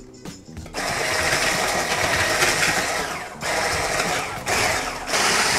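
Polaris hand blender with a whisk attachment running at speed, whisking eggs, cottage cheese and milk into a batter. The motor starts about a second in and cuts out briefly twice before running on.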